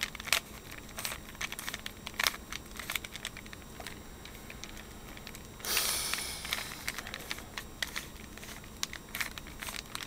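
Plastic Rubik's Cube layers being turned quickly by hand, making a string of irregular clicks and clacks, as the middle-layer edges are put in place. A brief rustling scrape comes a little past halfway.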